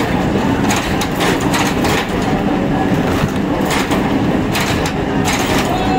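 Plywood mill machinery running loudly, a steady low hum under frequent sharp clacks and knocks.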